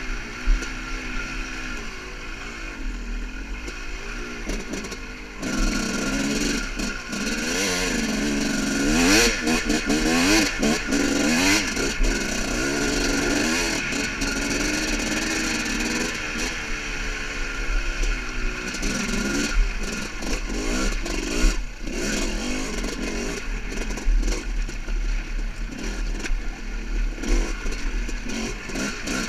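Yamaha YZ250 two-stroke dirt bike engine revving up and down at low speed, getting louder about five seconds in, with loose rocks knocking and clattering under the tyres.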